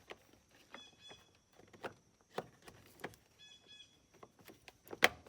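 Separate sharp clicks from the 2006 Jeep Wrangler's new headlight/turn-signal combination switch being worked into place on the steering column. The loudest click comes near the end.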